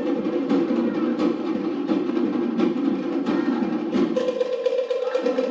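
Cook Islands drum ensemble beating a steady rhythm on wooden log drums and drums. The deep drum strikes drop out about four seconds in.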